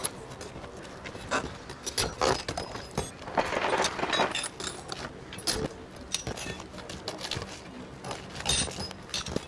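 Asphalt ridge cap shingles being pried up with a hammer and flat bar: irregular taps, clicks and scrapes of metal against gritty shingle, with a longer scrape a few seconds in.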